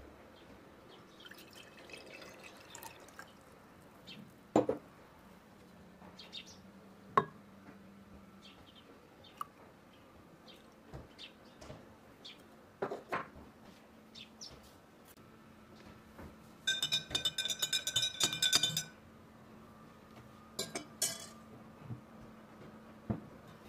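Glass or dishware handled: scattered knocks and clinks, with a run of rapid ringing clinks lasting about two seconds, two-thirds of the way through.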